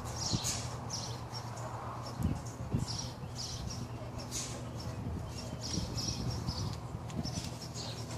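Small birds chirping repeatedly in short, high calls over a steady low hum, with a few dull thuds about two to three seconds in.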